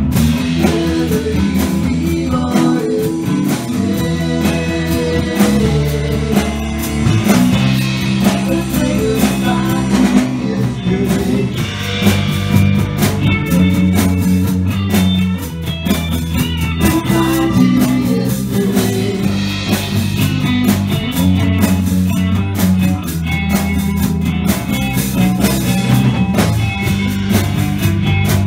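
Live band playing: electric guitar over bass and a drum kit, played loud and without a break.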